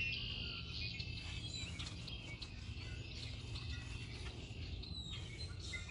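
Outdoor ambience: many small birds chirping and twittering over a steady low rumble.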